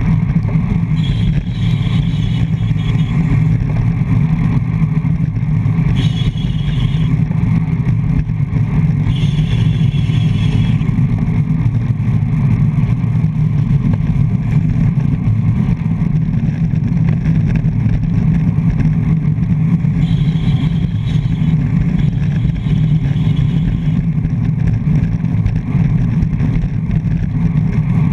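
Wind rushing over a handlebar-mounted GoPro Hero 3+ at racing speed, a steady low rumble mixed with road and tyre noise from road bikes in a pack. Over it come a few short stretches of higher-pitched buzzing ticking, typical of bicycle freewheels clicking as riders coast.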